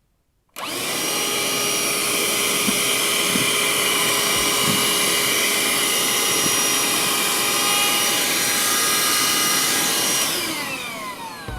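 Parkside PHSSA 20-Li A1 20 V cordless handheld vacuum cleaner switched on about half a second in, running steadily with a high motor whine while picking up pieces of cardboard, with a few faint knocks. Near the end it is switched off and the whine falls in pitch as the motor spins down.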